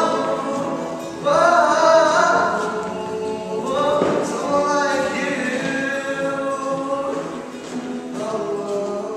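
Music with singing, several voices together, entering strongly about a second in and again about four seconds in, then fading out near the end.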